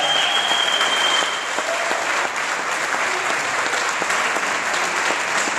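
Audience applauding, a dense steady clapping that eases slightly after the first second or so. A high held tone sounds over it until about a second in.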